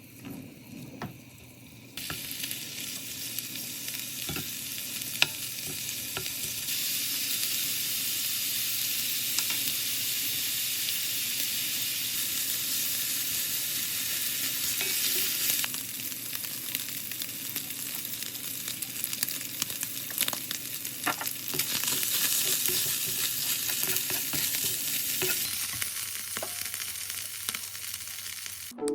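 Food sizzling in a hot frying pan, starting suddenly about two seconds in as it goes into the pan, with occasional sharp clicks of a utensil stirring against the pan.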